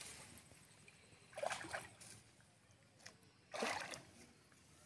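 Two short splashes of shallow muddy water, about a second and a half and three and a half seconds in, as a bamboo fish trap is shifted in the water.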